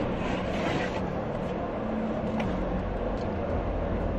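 A steady low droning hum, with a brief papery hiss in the first second and faint light taps as a cardboard watch box is handled.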